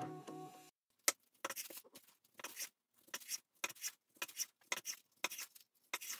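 A kitchen knife slicing a seaweed-wrapped kimbap roll on a wooden cutting board: a series of short cuts, each ending in a light tap on the board, about two a second.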